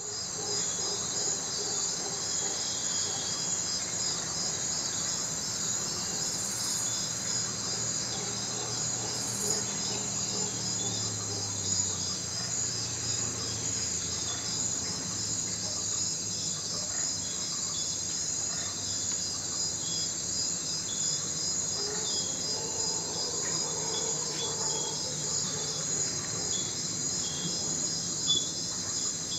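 A steady, high-pitched chorus of insects with a fine pulsing rhythm, over the low, droning roars of distant howler monkeys that are strongest in the first half.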